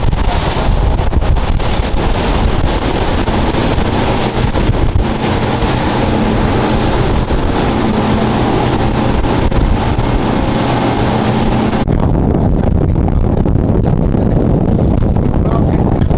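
Triple Mercury 600 V12 outboards running at speed, with wind rushing over the microphone and water noise from the hull and wake. There is a steady engine drone under the wind. About three quarters of the way through, the sound changes abruptly to a duller, low wind rumble.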